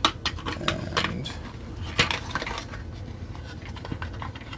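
Hard plastic parts of a Transformers toy trailer clicking and rattling as they are folded and snapped together by hand, a string of sharp clicks that thins out in the second half.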